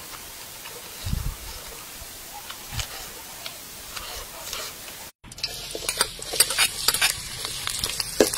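For about five seconds, quiet sounds of someone chewing fruit, with a few soft thumps. Then a sudden cut to a metal ladle scraping and stirring sliced onions and garlic in hot oil in a wok, sizzling with many sharp clicks of metal on metal. The frying is the loudest part.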